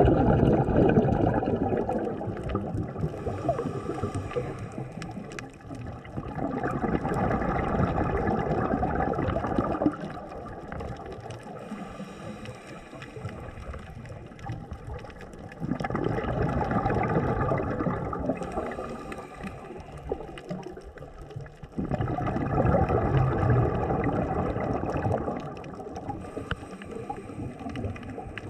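A scuba diver's breathing heard underwater: exhaled bubbles from the regulator gurgle in four bursts of about three seconds each, roughly every six seconds, with quieter hissing inhalations in between.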